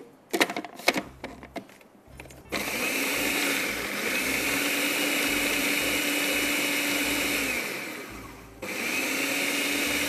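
Electric blender grinding basil leaves, garlic and grated parmesan into pesto. After a few clicks as it is handled, the motor starts about two and a half seconds in and runs steadily with a whine, runs down and stops near eight seconds, then starts again abruptly.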